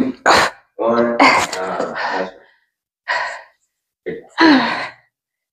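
A person's effortful breathing and voice while exercising: about four sharp, breathy exhales and short strained vocal sounds, one longer strained sound about a second in, with brief pauses between.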